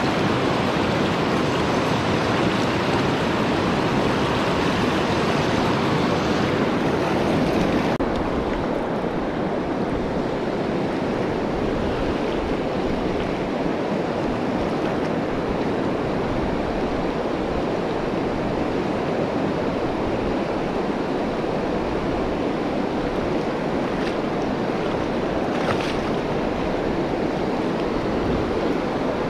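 Steady rush of a fast, shallow river current flowing over a stony bed, heard close to the water. The hiss turns a little duller about eight seconds in.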